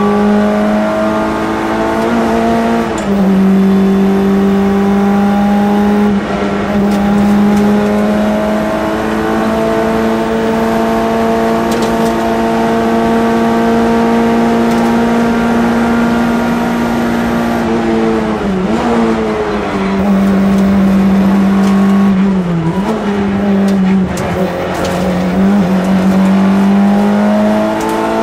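Citroën AX GT rally car's four-cylinder engine heard from inside the cabin, run hard at high revs with the pitch climbing slowly along the straights. The revs drop and pick up again about three seconds in, around two-thirds through, and several times near the end, as the driver lifts off and changes gear.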